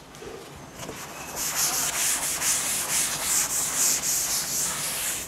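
A chalkboard being wiped clean with a sponge duster: a hissy scrubbing in quick back-and-forth strokes that starts about a second and a half in and stops abruptly near the end.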